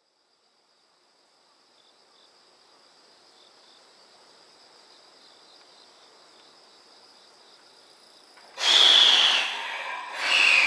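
Insects trill faintly and steadily. Then, about 8.5 s in, a JR Central 313 series electric train sounds two loud horn blasts as it starts a shunting move. The first blast lasts about a second; the second falls in pitch as it fades.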